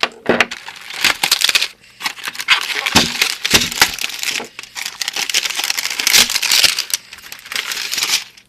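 Packaging being handled and unwrapped: crinkling and rustling with many small clicks and knocks as the contents are taken out of the box.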